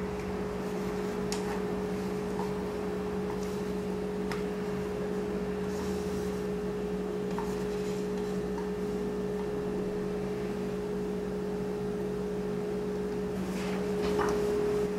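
A steady low hum with two constant tones, with a few faint clicks and scrapes as batter is scraped off a plastic bowl into a glass dish.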